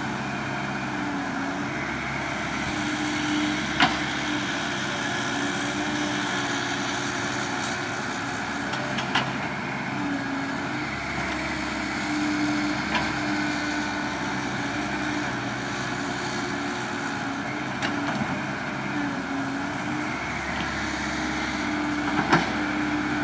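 Cat 312CL hydraulic excavator working: its diesel engine runs steadily, its tone dipping and recovering a few times as the boom and bucket are worked. A handful of short, sharp knocks come through, the loudest about four seconds in and near the end.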